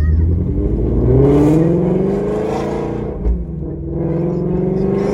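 Shelby's V8 engine accelerating, its pitch climbing, dropping at a gear change about three and a half seconds in, then climbing again. The exhaust is loud.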